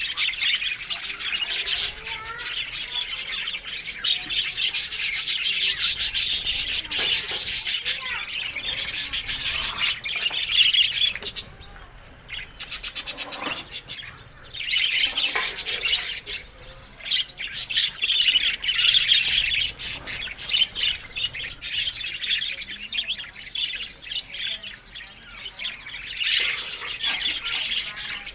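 A flock of budgerigars chattering and chirping continuously, with a few short lulls midway.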